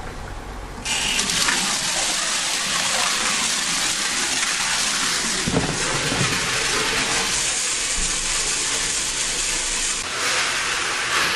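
Small parts tumbler running, cleaning valve springs, spring seats and retainers from a cylinder head, with a steady rushing noise that starts abruptly about a second in.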